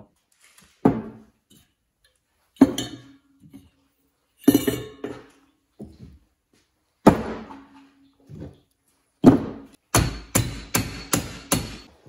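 Metal knocks and clanks on a steel bench vise and workbench as a microwave magnetron is handled and clamped in the vise: single sharp knocks a couple of seconds apart, several with a short metallic ring, then a quick run of six clanks near the end.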